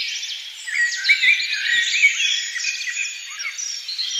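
Many birds chirping and whistling at once in a dense, busy chorus of short overlapping calls.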